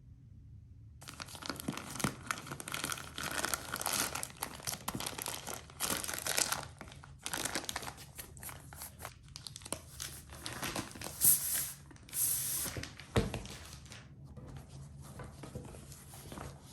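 Fast typing on a Pixel Space Capsule 65 custom mechanical keyboard with lubed Zaku II tactile switches on a polycarbonate plate: a dense clatter of keystrokes starting about a second in, broken by a few short pauses.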